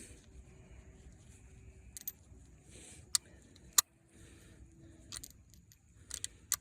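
A few sharp metallic clicks and clinks from hand tools and engine parts being handled, the loudest a little before the midpoint, with light rustling and scraping between them.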